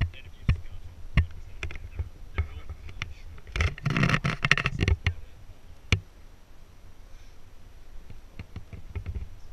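Scattered sharp clicks and knocks over a steady low rumble, with a denser run of clicking and rustling about four to five seconds in.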